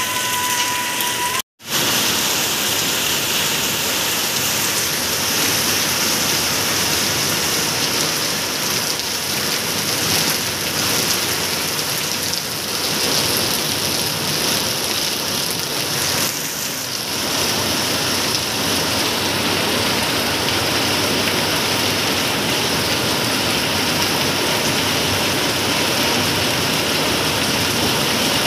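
Steady rain falling on wet ground and roofs, a dense even hiss. The sound cuts out for a moment about a second and a half in.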